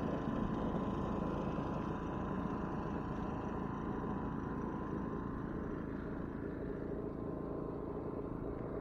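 Portable generator running steadily: a constant engine hum with a thin, steady high whine above it.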